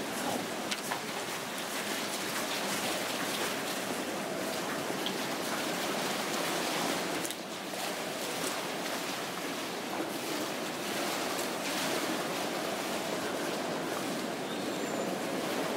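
A steady, even rushing hiss of outdoor ambience with a few faint ticks.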